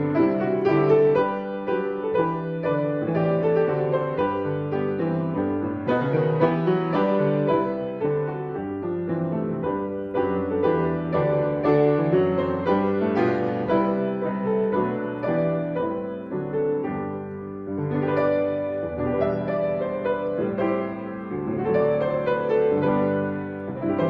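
Solo piano playing a slow, gentle piece of chords and melody.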